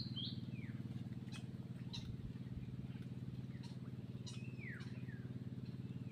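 A steady low engine drone, with a few short downward-sliding bird calls over it, one just after the start and one about four seconds in.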